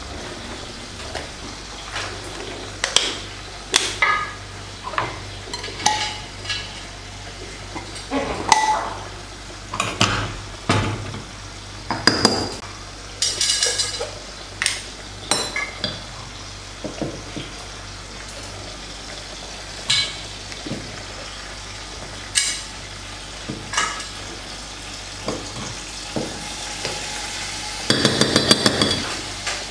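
Metal teaspoon clinking and scraping against a glass spice jar and plastic salt and pepper shakers as they are filled with salt and ground spice: separate sharp clinks every second or so, with a quick rattle near the end.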